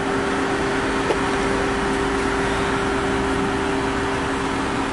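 Steady hum and rushing noise inside a stopped car, with two steady low tones held throughout.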